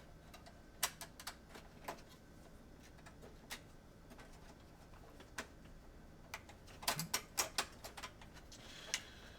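Scattered sharp clicks and light taps, with a quick run of them about seven seconds in: parts of a PS4 console being handled and worked loose as it is taken apart.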